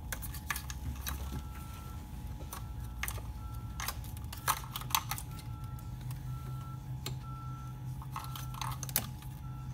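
Scattered small clicks and taps of a screwdriver tip prying at the plastic clip of an electrical connector to release it, over a steady low hum.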